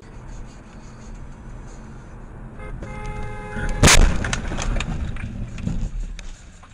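Car collision heard from inside the car: a car horn blares for about a second, then a loud crash of impact about four seconds in, followed by clattering of debris over steady road noise.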